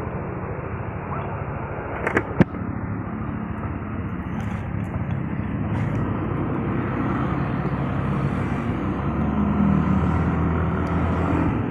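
Yamaha NMAX scooter's engine running with steady road and traffic noise, growing gradually louder in the second half. Two sharp clicks come about two seconds in.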